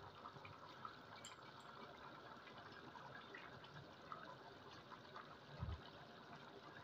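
Faint bubbling of rice and meat for Sindhi pulao boiling in a metal pot, the cooking water being boiled down. A short low thump comes about three-quarters of the way through.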